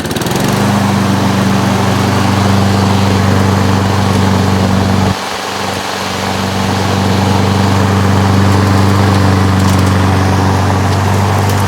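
Briggs & Stratton 7.25 hp single-cylinder mower engine on a Craftsman self-propelled lawn mower catching just after the start and running steadily on a fresh spark plug, with a brief dip in its note about five seconds in.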